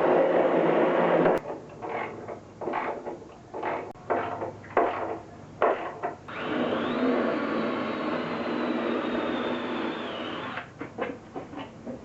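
Power drill drilling into wood: a short steady run, a string of brief trigger bursts, then a long run of about four seconds whose motor whine rises as it spins up and falls as it winds down, followed by more short bursts.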